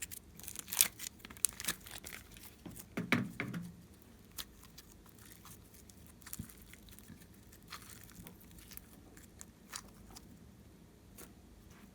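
Glossy slime being stretched and squished by hand, giving crackling sticky snaps and small pops. They come thick and loud for the first few seconds, then thin out to scattered faint clicks.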